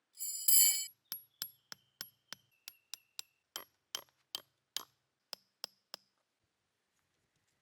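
A loud metallic clang with ringing, then about fifteen sharp taps, about three a second, as the hammer head of a combination axe-hammer drives a metal tent peg into soft, clayey ground; each tap gives a short ring, and they stop about six seconds in.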